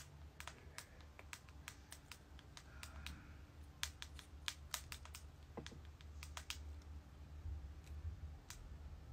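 Typing on a smartphone touchscreen: faint, irregular light taps and clicks as a text message is written, over a low steady hum.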